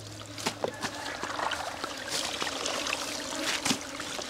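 Water trickling and dripping back into a plastic tub as handfuls of washed fish are lifted out, with a few small splashes, the sharpest near the end.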